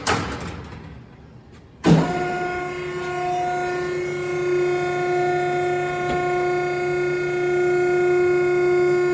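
Cardboard baler's electric motor and hydraulic pump starting suddenly about two seconds in, then running with a steady hum and whine as the platen is driven back up. A brief rattle comes just before.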